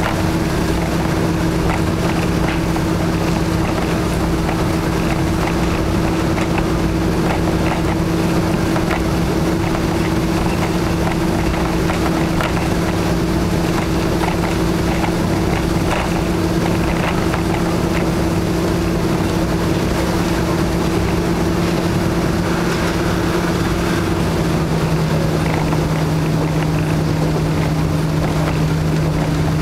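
Inside a KiHa 52 diesel railcar: its twin DMH17H diesel engines drone steadily under way over the rumble of wheels on rail, with scattered clicks and knocks. The engine note steps down slightly about 25 seconds in.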